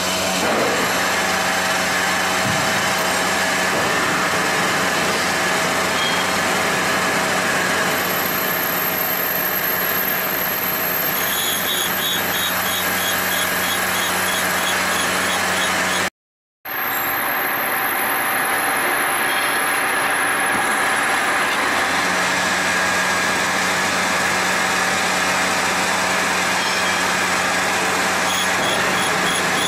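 Grinding machine running while it dresses a bowl-type grinding wheel: a steady motor hum under an even grinding hiss, with a faint high whine at times. The sound cuts out for a moment about halfway through.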